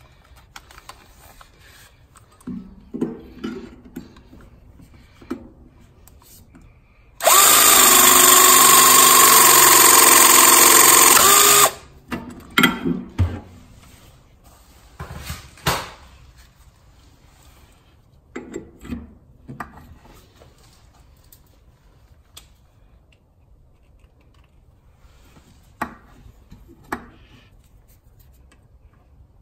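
Electric pipe press tool with TH25 jaws crimping a 25 mm brass press fitting onto multilayer (MLCP) pipe: a steady motor whine lasting about four and a half seconds, starting and stopping sharply. Short clicks and knocks of the tool and fitting being handled come before and after.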